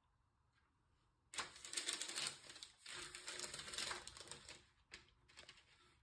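Parchment paper crinkling as it is pressed and smoothed by hand into a metal baking sheet, starting about a second in and going on for about three seconds, then a few lighter rustles near the end.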